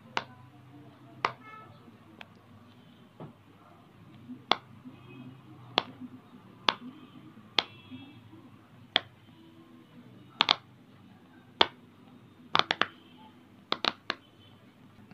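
Silicone pop-it fidget toy's bubbles being pressed in with a fingertip, each giving a sharp pop, roughly one a second, then quicker in twos and threes near the end.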